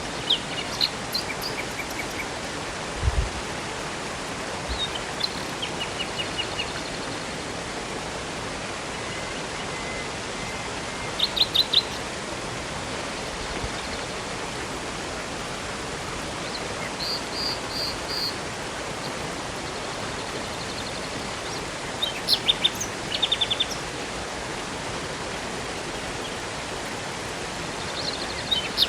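Steady rushing water of a river and waterfall, with songbirds chirping at intervals: short trills and quick runs of high notes every few seconds. A brief low thump about three seconds in.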